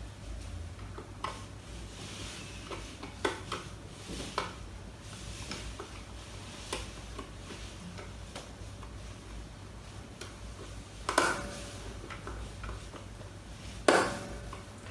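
Small screwdriver working the screw terminals of a PLC board, with scattered light metallic clicks and ticks as the wires are handled, and two sharper clicks near the end.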